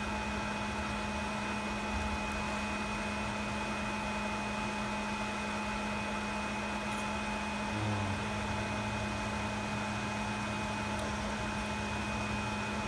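WDS-620 BGA rework station running a heating cycle: a steady fan and hot-air blower hum with a constant whine in it. A lower hum joins about eight seconds in.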